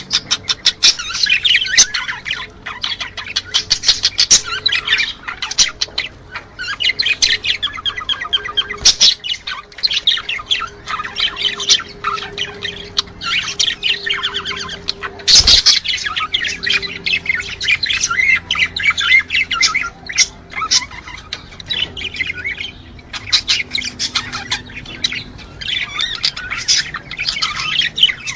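Budgerigars chirping and warbling without a break: the breeding-season chatter played to bring budgies into breeding condition. A single sharp click about halfway through.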